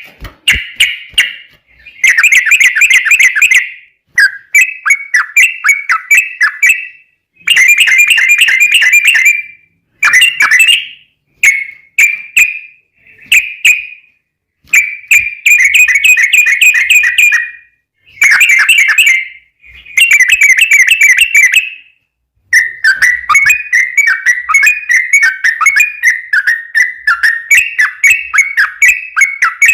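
Yellow-vented bulbul (trucukan) singing: bursts of fast, chattering repeated notes in phrases of one to three seconds with short pauses between them. About twenty-two seconds in, one long unbroken run of the rapid song begins.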